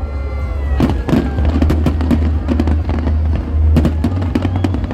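Fireworks display: a rapid, continuous run of bangs and crackles over a constant low rumble.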